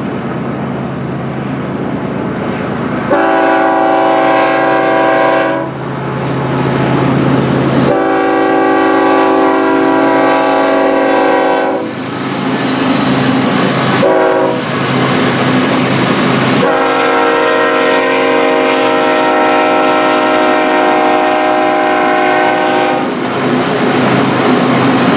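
BNSF ES44DC diesel locomotive running and sounding its multi-tone air horn in the grade-crossing pattern: two long blasts, a short one, then a long one, over the engine rumble.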